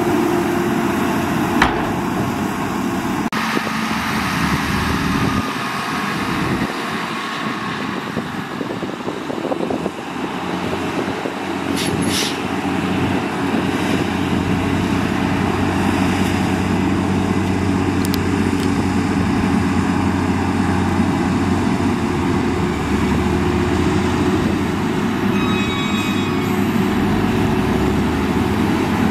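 Diesel engine of a heavy dump truck running steadily as the loaded truck drives slowly over soft sand, with a brief high hiss about twelve seconds in.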